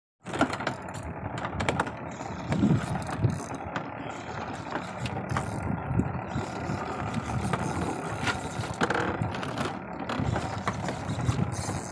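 Spinning reel ratcheting and clicking as a hooked fish is fought on the line, over a steady low rumble.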